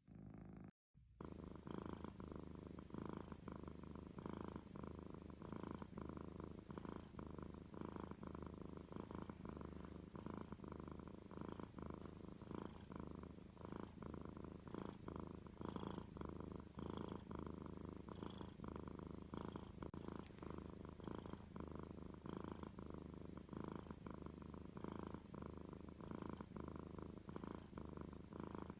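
A domestic cat purring steadily, the purr swelling and easing in a regular rhythm, with a brief break about a second in.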